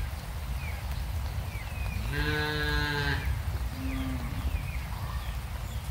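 A cow mooing once, a call of about a second, with a shorter low sound a second later, over a steady low rumble and short high chirps.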